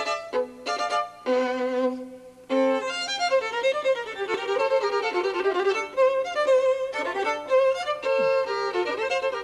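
Solo violin playing: a few short notes, then a held note with vibrato, and from a couple of seconds in a fast running passage of notes.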